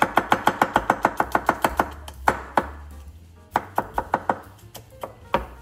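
Chef's knife chopping garlic cloves on a plastic cutting board, with quick strikes about six a second for the first two seconds. After a pause comes a second, shorter run of chops and a few single strikes near the end.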